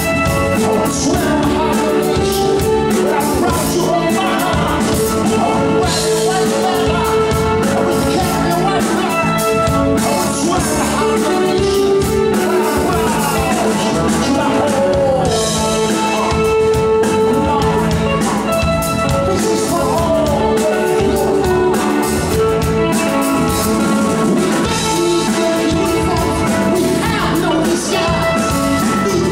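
Live rock band playing: a male lead singer over bass guitar, drums and keyboards, with held keyboard notes under the vocal line.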